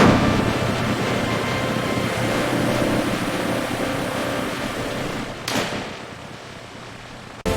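Steady whooshing machinery noise, with a sharp hit at the start and another about five and a half seconds in, after which it runs quieter.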